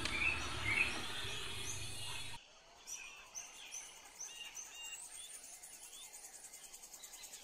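A small bird chirping repeatedly: short, high rising chirps over faint room noise. The background noise drops away abruptly about two and a half seconds in.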